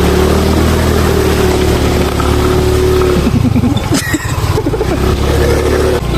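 Motor vehicle engine running loudly under load on a rough road, steady at first, its sound breaking up and shifting about three seconds in before settling again.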